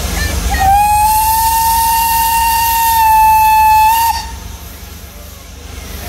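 Steam locomotive whistle giving one long, steady blast of about three and a half seconds, starting just under a second in with a brief upward slide in pitch as it opens.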